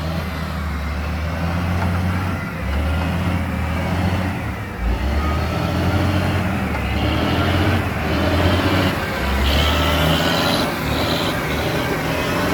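Heavy diesel earthmoving machinery running under load, the engine's low drone swelling and easing as the work goes on, with intermittent higher whines over it.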